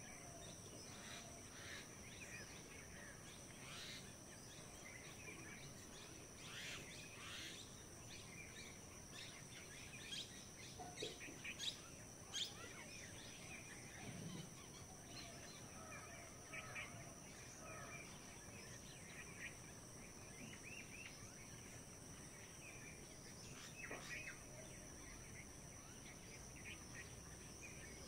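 Faint rural outdoor ambience: scattered short bird chirps and calls, a few louder ones about ten to twelve seconds in, over a steady high-pitched hum.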